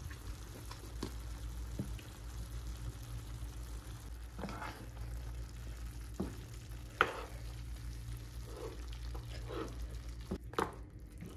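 Beef pieces cooking in spices in a pan with a faint sizzle, and a spatula scraping and knocking against the pan a few times from about halfway through as the spices are stirred in. A steady low hum runs underneath.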